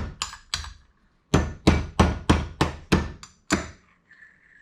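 A small hammer tapping a brass pin to drive the needle adjuster out of a carburetor body: three quick taps, a short pause, then a run of about eight taps at roughly three a second.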